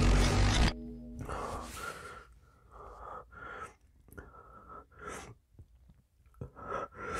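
A loud burst of music cuts off suddenly under a second in, followed by a run of short, soft breaths and mouth sounds from a man, coming irregularly about once or twice a second.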